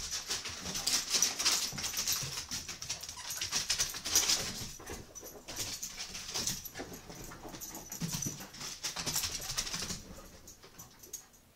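Beagle puppy running wildly over a hardwood floor: rapid, irregular clicking and skittering of its claws on the boards, dying away about ten seconds in.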